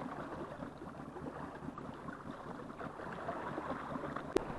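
Sea waves washing on the shore: a steady rush of surf, with a single sharp click near the end.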